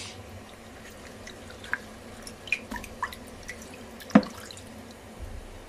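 Water dripping in scattered single drops of differing pitch, with one sharper knock about four seconds in.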